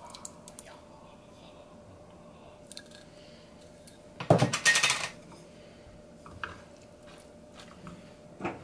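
Wooden spatula scraping thick salsa out of a glass jar and knocking against the jar and frying pan, in small clicks with one louder scrape about four seconds in, over a faint steady hum.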